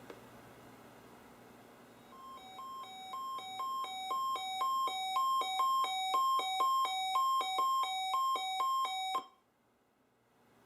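Weather alert radio sounding its alert alarm: a beeping that alternates quickly between a higher and a lower tone, starting about two seconds in, growing louder over several seconds, then cutting off abruptly near the end. The alarm signals an incoming NOAA Weather Radio alert, here the statewide tornado drill test, over faint radio hiss.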